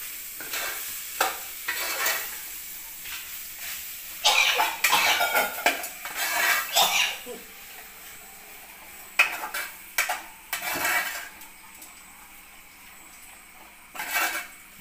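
Metal spoon stirring and scraping potatoes in an aluminium pot on a gas stove, with irregular clinks against the pot, in bursts separated by quieter stretches of faint sizzling.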